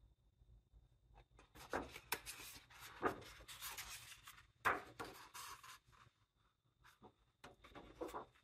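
Pages of a large paperback book being turned by hand: paper rustling and swishing in several separate page turns, the loudest about three and five seconds in and another near the end.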